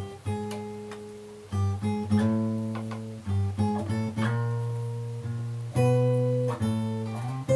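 Acoustic guitar playing a slow instrumental intro: chords struck about once a second or two, each ringing out and fading before the next.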